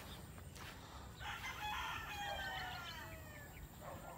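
A rooster crowing once, starting about a second in and lasting about two seconds, its pitch falling at the end.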